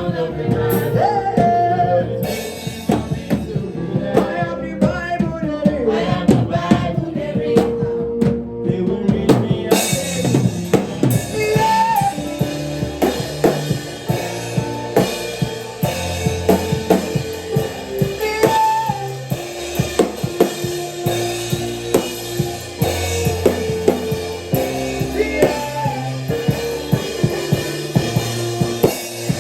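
Band music driven by a drum kit keeping a steady beat over held pitched notes; cymbals join in about ten seconds in.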